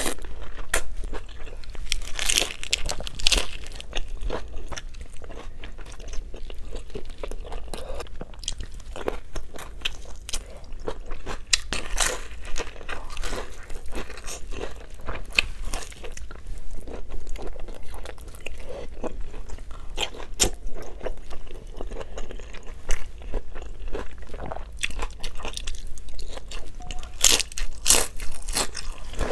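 Close-miked eating: a person biting into and chewing fried spring rolls (lumpia) and other food, with repeated crunches and irregular chewing clicks.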